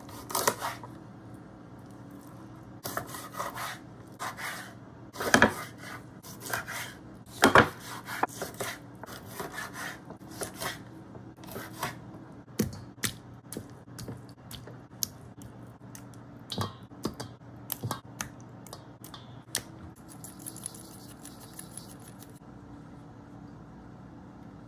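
Kitchen knife cutting raw chicken wings apart at the joints on a wooden cutting board: irregular knocks and taps of the blade against the board, over a low steady hum.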